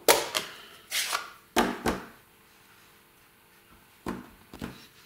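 Sharp clicks and knocks of rubber-stamping supplies being handled on a table: ink pad and acrylic stamp block. A few come close together in the first two seconds and two more around four seconds in.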